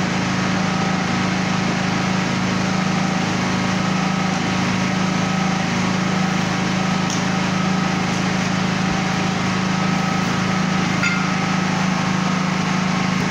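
Steady drone of a running engine or motor: a constant low hum with a few fainter steady whine tones over an even hiss. Its level and pitch do not change.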